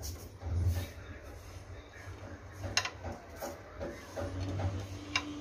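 Hands rubbing and turning dry couscous grains in a steel pot: a soft gritty rustle over a low rumble, with a few sharp clicks, one about midway and one near the end.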